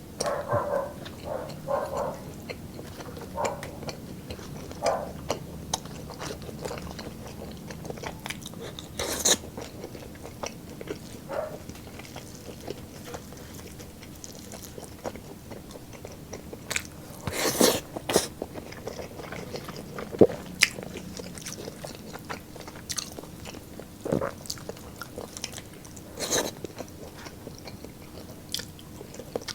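Close-miked chewing and biting of roast lechon pork ribs and chicken, with wet mouth sounds, scattered small clicks and several louder sharp crunches and snaps.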